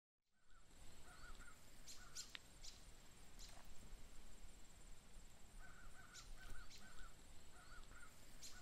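Faint rural outdoor ambience: birds calling in short repeated phrases with scattered sharp chirps, over a steady high-pitched buzz and a low rumble.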